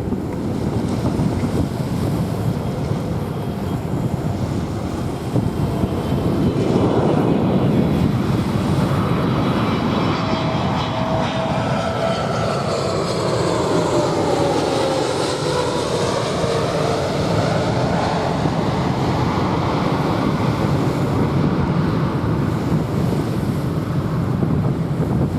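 Jet airliner passing overhead, its engine whine falling in pitch as it goes by, over the steady wash of surf and wind.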